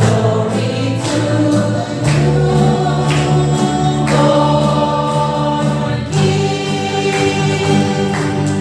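A choir singing a Christmas carol with accompaniment, sustained chords changing every second or two.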